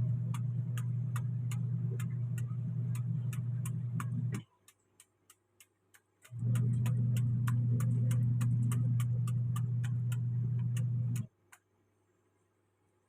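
A motor hums steadily in two runs, stopping about four seconds in and starting again about two seconds later for about five seconds more. A steady ticking, about three ticks a second, goes on underneath throughout.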